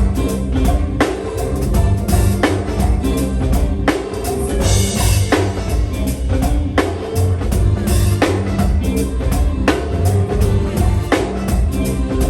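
Live band music: a drum kit with kick and snare hits over a heavy bass line, playing a steady groove.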